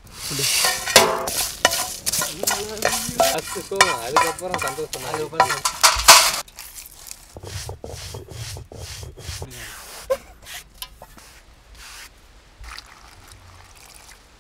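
Wet, thick tomato purée being stirred and scraped in a steel pot with a wooden paddle, loud and busy for about six seconds. It cuts to a stone roller being worked back and forth on a stone grinding slab to grind masala, a quieter low rumble with regular strokes about twice a second.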